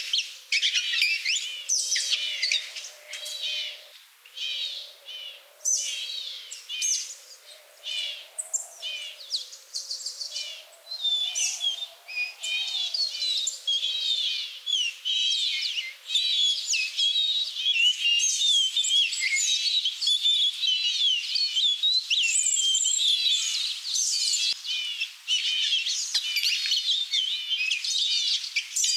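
A dense chorus of many small songbirds chirping and twittering at once, quick overlapping trills and tweets without pause.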